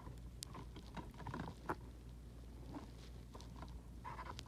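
Faint scratching and small crinkly ticks of fingernails picking at the plastic seal wrapped around a DVD case, with a slightly fuller rustle near the end.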